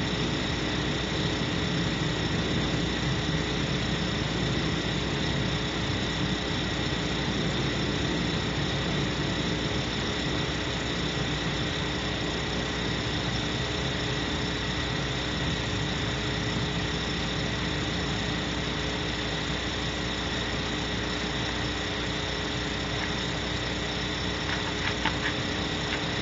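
Steady hiss with a constant electrical hum of several fixed tones from a live-stream camera microphone, with a few faint clicks near the end.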